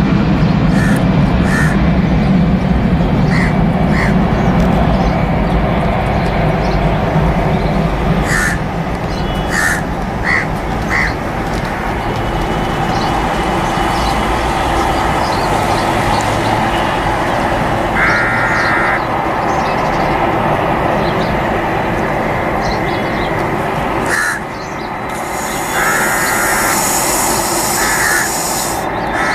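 Steady jet engine roar of an Airbus A320 at takeoff power, heaviest and deepest in the first several seconds, with crows cawing over it a dozen or so times in short calls.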